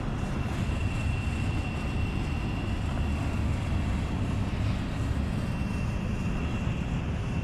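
Wind buffeting the microphone in a steady low rumble, with a thin steady high whine throughout.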